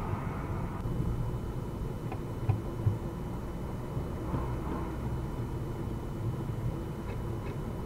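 A car driving, heard from inside the cabin: a steady low rumble of engine and road noise, with a few faint ticks about two seconds in and again near the end.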